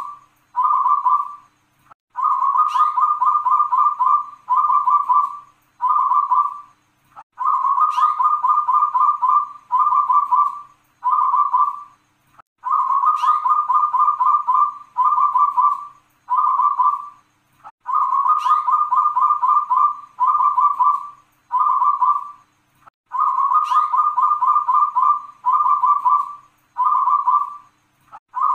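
Zebra dove (perkutut) singing its cooing song, the phrase repeated about every five seconds. Each phrase opens with a short high rising note, followed by a long rapid rolling coo and two or three shorter 'kung' coos.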